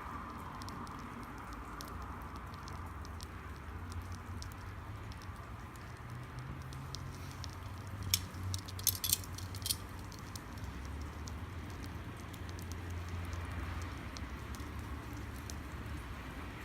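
Wood campfire burning, crackling with scattered small snaps and a quick run of louder pops about halfway through, over a steady low hum.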